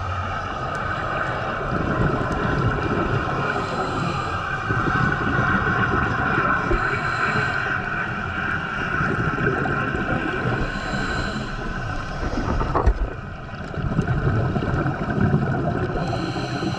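Scuba diving heard underwater: a diver's regulator breathing, a faint hissing inhale every few seconds with bubbling, gurgling exhales between, over a steady hum.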